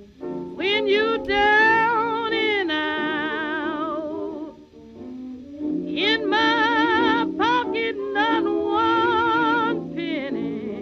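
Background music: a song with a voice singing long, wavering held notes over guitar.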